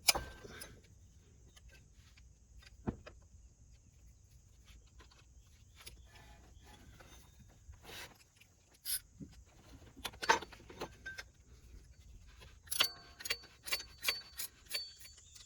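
A 13mm socket and ratchet on a bolt: scattered metal clinks, then near the end a run of sharp, evenly spaced ratchet clicks as the bracket bolt is worked loose.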